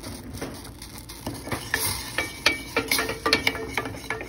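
A spoon stirring melting butter and brown sugar in a small stainless steel saucepan, clinking and scraping against the sides and bottom of the pan. The taps come more often from about a second and a half in.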